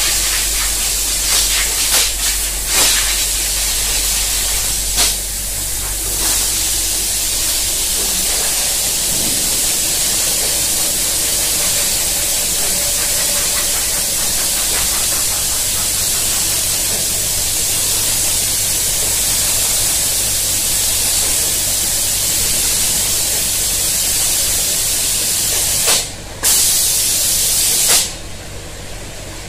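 Automatic spray-painting line running: a loud, steady hiss of atomised paint and compressed air, with a few sharp clicks in the first seconds. The hiss cuts out briefly near the end, comes back, then drops away just before the end.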